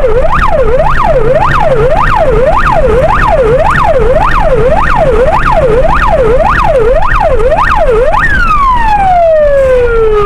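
Police car siren in fast yelp mode, sweeping up and down about twice a second, then switched off about eight seconds in, its pitch sliding down as it winds off. The pursuing car's engine and road noise run underneath.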